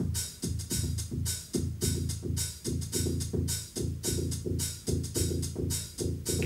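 Electronic music played live: a Behringer RD-9 drum machine runs a steady kick and hi-hat pattern, a little over two beats a second, under a pitched synth bass line.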